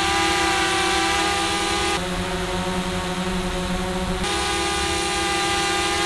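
Two small quadcopter drones hovering, heard in turn as a steady multi-tone propeller buzz. A DJI Mavic Mini plays first, with higher, whinier tones. About two seconds in it cuts abruptly to a DJI Mavic 2 Pro on low-noise propellers, a lower-pitched hum, and it cuts back to the Mavic Mini about four seconds in.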